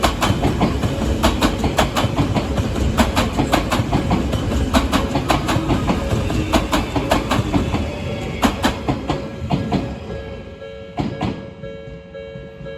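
A train running over a level crossing: its wheels clack repeatedly over the rail joints above a steady rumble, and the sound fades as the train clears about ten seconds in. Near the end a level-crossing warning bell can be heard ringing in a steady pulsing pattern.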